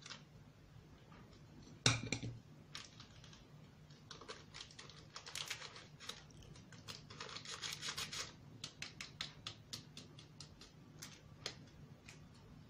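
Hands adding baking powder to flour in a metal bowl and sifting it: a sharp click about two seconds in, then runs of short scratchy rustling strokes and light ticks.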